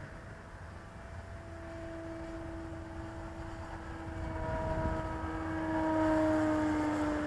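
An E-flite Cessna 150 RC plane's electric motor and propeller whining as the plane flies past. The whine grows louder toward a peak near the end, and its pitch falls slightly as it passes.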